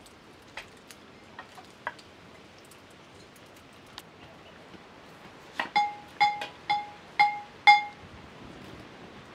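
Metal struck about six times, roughly two strikes a second, each giving a sharp clink that rings with a clear bell-like tone, after a few faint soft taps.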